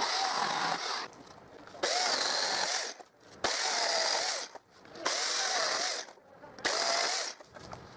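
Chainsaw held in a cutting jig, cutting branches in five short bursts of about a second each, with short pauses between. Its pitch dips and wavers as the chain bites into each branch.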